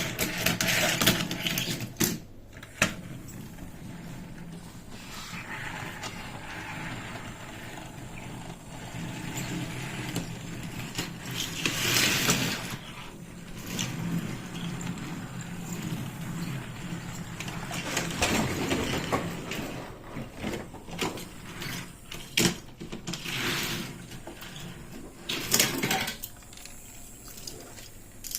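Plastic toy-train playset pieces being handled: irregular clicks, knocks and rattles, with a faint steady hum underneath, like a small battery motor running.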